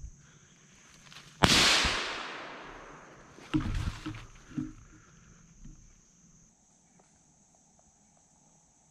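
A single rifle shot: a sharp crack about a second and a half in that echoes and dies away over about two seconds. A few duller knocks and rustles follow about two seconds after it.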